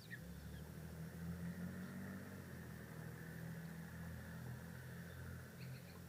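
A steady low engine hum, with a few short, faint high bird chirps near the start and again near the end.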